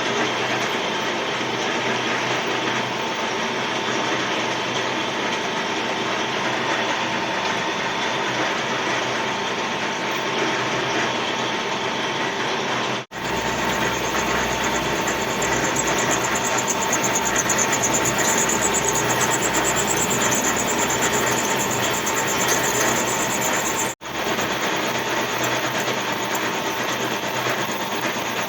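A machine running steadily under load, a dense mechanical noise with a constant hum. The sound breaks off for an instant twice, about halfway and again near the end.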